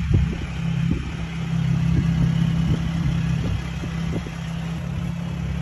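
A vehicle engine idling, a steady low drone.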